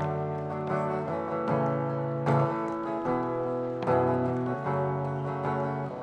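Acoustic guitar playing an instrumental passage of a Cantopop song, with strummed chords ringing and changing about once a second.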